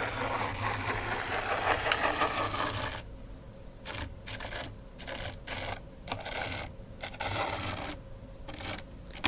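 Small electric motor of an N gauge tank locomotive running along the track with a scraping whirr. About three seconds in it starts cutting in and out in short bursts as the loco stutters and struggles, a sign of dirty track and a stiff mechanism.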